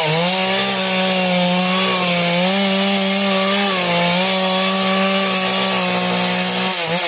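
Stihl two-stroke chainsaw running at full throttle as it cuts through a manglid log, its pitch dipping briefly several times as the chain bites under load. Near the end the revs fall sharply as the throttle is let off.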